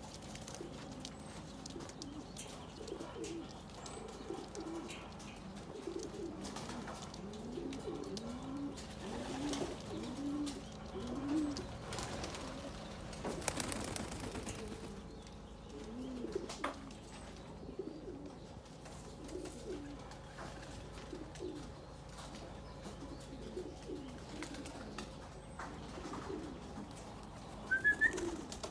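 A flock of young racing pigeons cooing, many short, low, wavering coos overlapping, with scattered light taps and a couple of sharper taps near the end.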